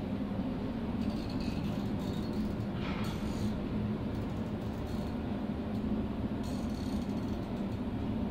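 A steady low mechanical hum, unchanging in level.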